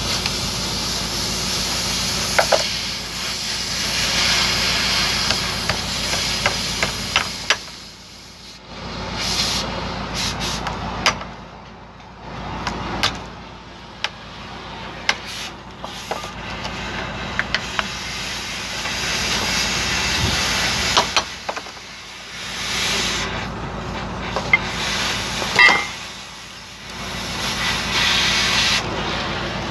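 Sharp metal clicks and taps of steel tools on a truck propeller shaft's universal-joint yoke as the cross joint's snap rings are worked into place. They sit over a loud rushing hiss that swells and fades several times.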